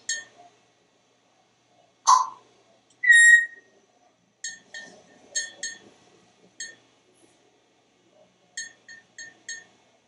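African grey parrot vocalising close by. A short call about two seconds in is followed by one clear whistled note, then two runs of short beeping pips.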